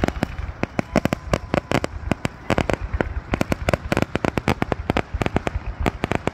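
Fireworks finale barrage: a rapid, unbroken run of sharp bangs from launching and bursting aerial shells, several a second and overlapping.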